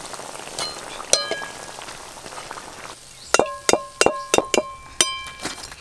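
Potato chops frying in hot oil in a metal kadai, a steady sizzle with a few faint clicks of a metal spatula. Then, about three seconds in, a metal ladle knocks against the kadai's rim in a quick run of about eight ringing clinks as the fried chops are lifted out.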